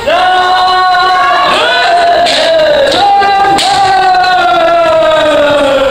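Several kendo practitioners' kiai shouts, long drawn-out cries from overlapping voices, each held and sliding slowly down in pitch. A couple of sharp knocks from bamboo shinai striking come through in the middle.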